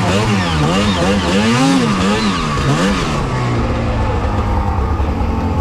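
Snowmobile engine revving up and down in quick throttle blips, about two to three a second, then settling into steady, lower running about three seconds in.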